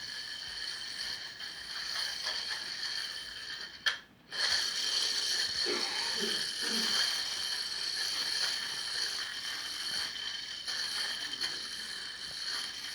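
Blazing Team Metal Max Tornado metal yo-yo spinning, a steady high-pitched whir that cuts out briefly about four seconds in.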